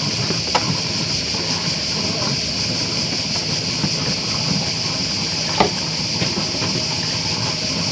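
A steady high hiss of outdoor ambience over a low rumble, broken by two sharp knocks: a light one about half a second in and a louder one near six seconds in.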